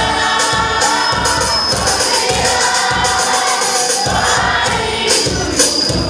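Church worship group singing together, men's and women's voices, with acoustic guitar and hand claps over a steady beat.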